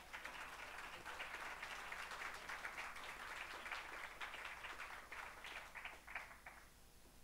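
Audience applauding, a dense patter of many hands clapping that thins out and stops near the end.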